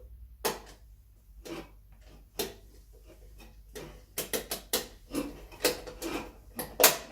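Sharp plastic clicks and knocks as the cover of an Aqara wall switch is handled and fitted: three spaced clicks, then a quicker run of clicks from about four seconds in.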